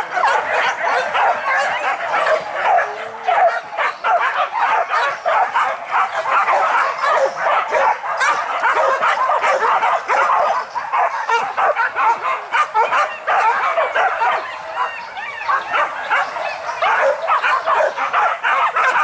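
A pack of hunting dogs barking and yelping over one another without a break, many dogs at once, excited on the hunt.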